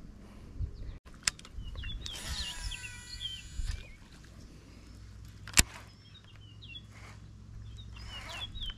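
Birds chirping and whistling in short curling calls, with two sharp clicks, the louder one about five and a half seconds in, over a low steady rumble.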